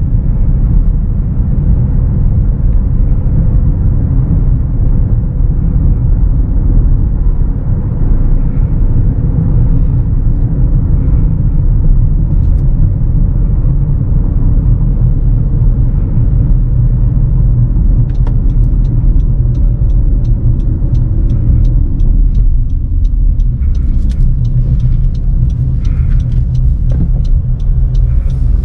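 Cabin sound of a 2018 Honda CR-V Turbo driving at about 60 km/h: a steady low road and tyre rumble. From about two-thirds of the way in, the turn-signal indicator ticks about three times a second as the car slows into a turn.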